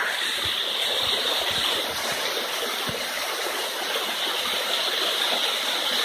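Small waterfall: water sliding and splashing down a sloping rock slab, a steady rushing sound.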